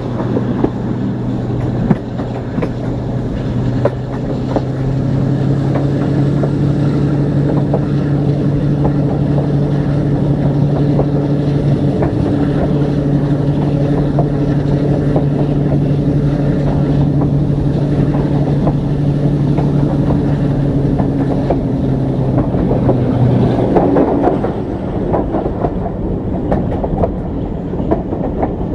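Class 42 'Warship' diesel-hydraulic locomotive's twin Maybach engines pulling the train, a steady drone heard from a coach window, with wheels clicking over the rail joints. Near the end the engine note drops away and mostly wheel and track noise is left.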